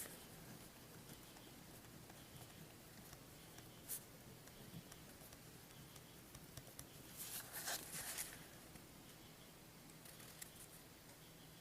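Near silence with faint handling sounds: a single light click about four seconds in, and a brief scratchy rustle around seven to eight seconds in.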